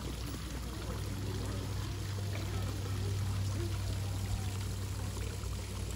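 Steady wash of running water from the enclosure's pond and stream channel, over a steady low hum.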